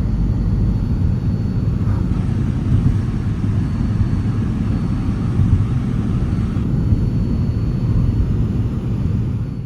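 Steady low rumble of a vehicle driving, engine and tyre noise heard from inside the cabin; it fades out near the end.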